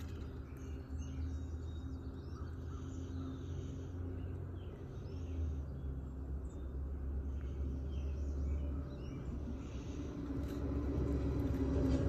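Steady low hum with faint, scattered bird calls.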